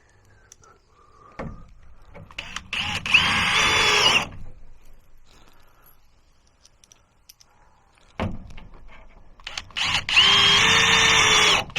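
Power drill driving screws twice. Each run starts with the motor whine rising, then holds steady, and the second run is longer.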